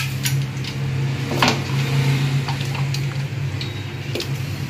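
Light clicks and knocks of wooden chopsticks against an aluminium stockpot and a plate as boiled pork belly is lifted out, over a steady low hum.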